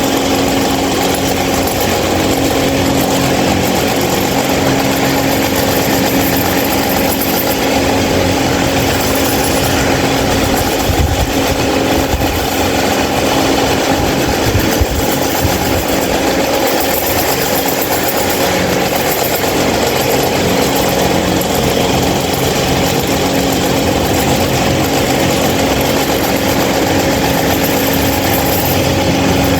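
26-inch Mahita stand fan running loud: a steady rush of air from the blades over a constant motor hum.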